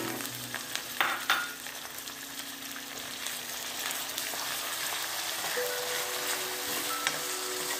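Minced beef sizzling in hot oil with chopped onion, ginger and garlic as a spoon stirs it through the pan, with two sharp knocks of the spoon against the pan about a second in and lighter scraping after.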